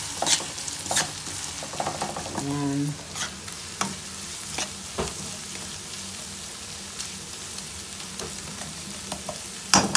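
Minced garlic and onion sizzling in hot butter and oil, with a spatula scraping and knocking against the pan as it stirs; the loudest knocks come near the end. The aromatics are being sautéed until they brown, before the meat goes in.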